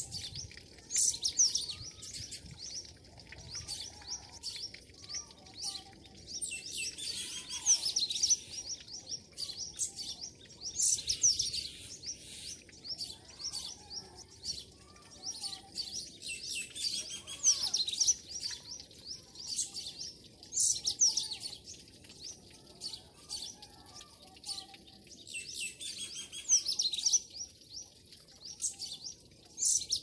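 Small songbirds chirping and twittering: quick high, gliding notes from several birds, swelling into louder clusters every few seconds.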